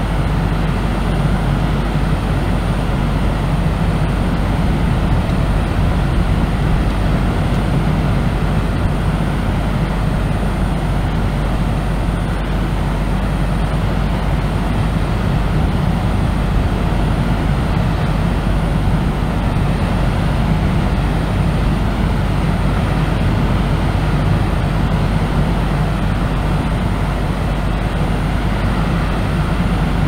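Steady deep brown noise, a continuous low rushing hiss with no rise and fall.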